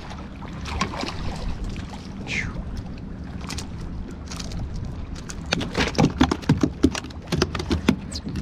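Water lapping around a kayak with wind on the microphone, a short falling squeak about two seconds in, then a quick run of clicks and knocks in the second half as a small fish and its jig are handled and unhooked.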